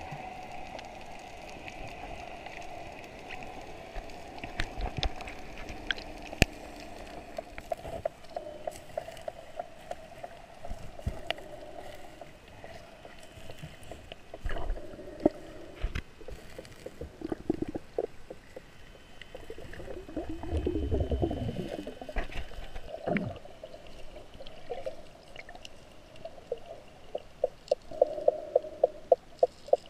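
Underwater sound picked up by a snorkeler's camera: a steady muffled hum of water with scattered sharp clicks and gurgles. About two-thirds through there is a louder low rush, like bubbles, and near the end a quick run of clicks at about five a second.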